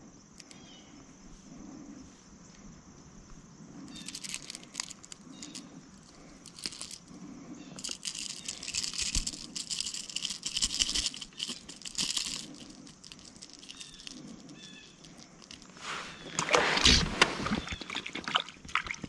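Handling noises as a lure is worked out of a small bass's mouth: scattered clicks and two bouts of crackly rustling, then a louder rush of noise near the end.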